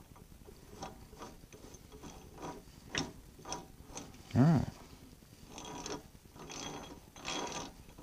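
Cast-iron change gears on an Atlas lathe being handled and turned by hand: scattered metal clicks, then the gear train spun in three short spells of meshing rattle near the end, checking that the gears run freely. A short vocal grunt about halfway through is the loudest sound.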